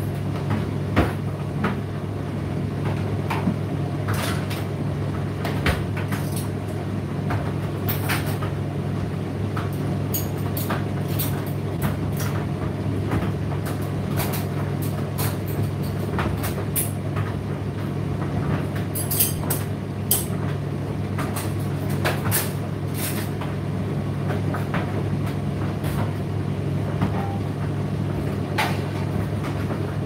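Indesit IDC8T3 condenser tumble dryer running mid-cycle: a steady motor and fan hum with irregular clicks and knocks scattered through it.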